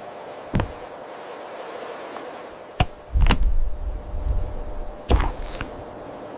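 A few sharp knocks and thuds, the loudest about three seconds in with a low rumble after it, over a steady background hum.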